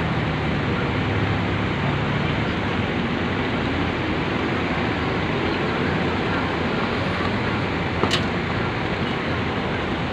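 Steady vehicle noise of a tour bus's engine running amid traffic, with a low engine hum most prominent in the first couple of seconds. There is a single sharp click about eight seconds in.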